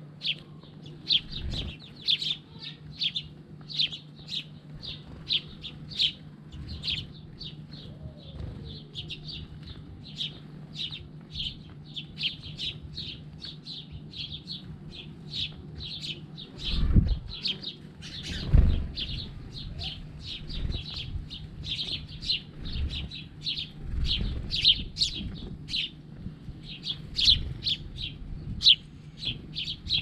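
House sparrows chirping: a steady run of short cheeps, two or three a second, with two low thumps a little past the middle.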